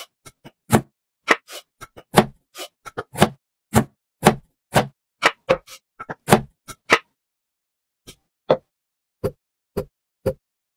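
A series of short, separate wooden knocks and taps, about two a second, with dead silence between each, the edited sound effects of pine boards being set down and handled in a stop-motion build. A pause of about a second comes partway through.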